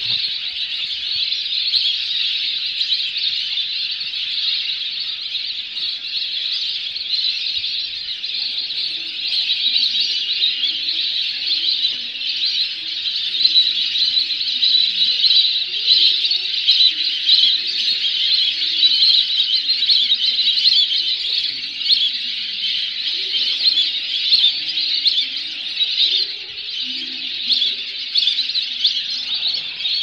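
A large flock of migratory waterbirds on a lake calling all at once: a dense, unbroken chorus of high calls that swells somewhat in the middle.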